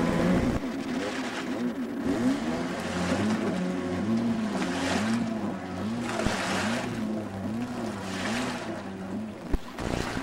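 Stand-up jet ski engine running out on the water, its pitch rising and falling in a quick regular wobble a little more than once a second as the rider works the throttle through the turns, with swells of spray hiss. A single sharp tap near the end.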